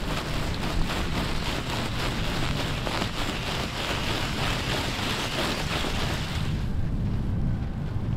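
Strong wind buffeting the microphone with a constant low rumble, joined by a crackling hiss that fades away about six and a half seconds in.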